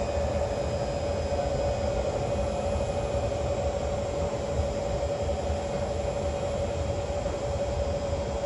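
Kawasaki C151 metro train running at a steady speed, heard from inside the carriage: a steady whine that holds one pitch over the constant low rumble of wheels on the track.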